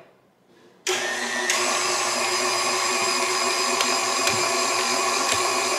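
KitchenAid stand mixer motor driving a Fresh Prep slicer/shredder attachment, starting abruptly about a second in and then running steadily with a constant whine as it shreds Gruyere cheese.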